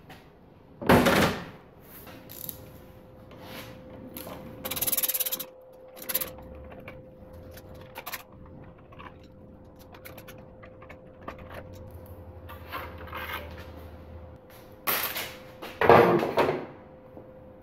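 Workshop handling sounds of parts and tools on a motorcycle being stripped: irregular clicks, knocks and rubs. There are louder clunks about a second in and near the end, and a short hiss around the fifth second.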